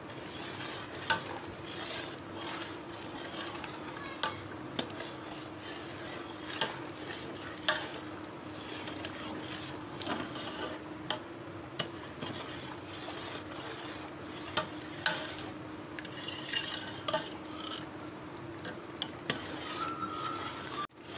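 Metal spoon stirring thick mango kheer in an aluminium pot, scraping and clinking against the sides and bottom at irregular moments, over a steady low hum.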